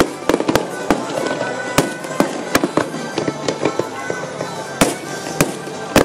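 Fireworks display: a run of irregular sharp bangs and crackles from shells bursting, several close together at times, over a steady background din.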